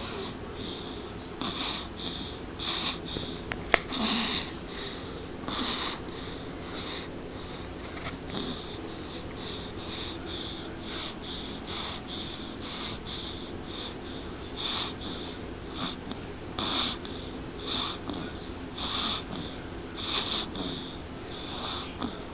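Snoring: repeated short, wheezy, hissing snores, roughly one a second and a little uneven. A single sharp click comes about four seconds in.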